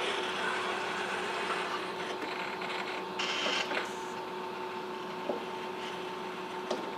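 Baxter robot's arm motors whirring as the arm swings back from the workbench, over a steady two-pitch hum. A brief rattle comes a little past three seconds in, and a couple of light clicks follow as gear parts are handled.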